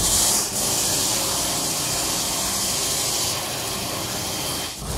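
Steady hiss of a pressure-washer spray on a motorcycle wheel, starting abruptly and thinning a little about three seconds in.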